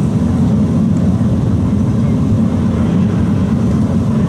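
A loud, steady low roar of machinery runs without change throughout.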